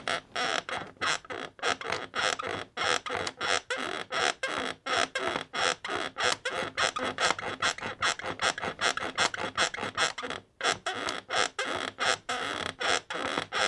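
Bed creaking in a fast, steady rhythm, about three to four creaks a second, with a brief break about ten seconds in.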